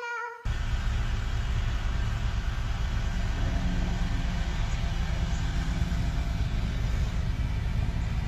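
Steady rumbling vehicle noise, like a car on the road, that starts abruptly about half a second in after a short falling tone cuts off.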